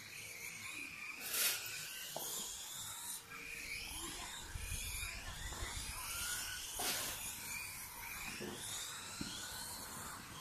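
Electric 1:10 scale RC rally cars running the course, their motors whining up and down in pitch as they accelerate and slow through the turns. Two sharp knocks, about a second and a half in and near seven seconds in.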